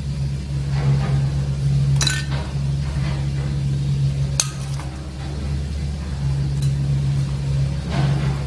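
Metal cake cups clinking and tapping against plastic trays as steamed cupcakes are lifted and set down: a few sharp clinks, the clearest about two and four and a half seconds in. A steady low hum runs underneath.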